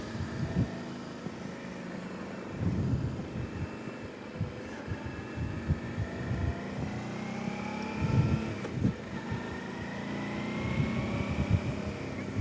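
Suzuki V-Strom DL650A's V-twin engine running under way, its pitch rising and falling slowly, with irregular low thumps over it.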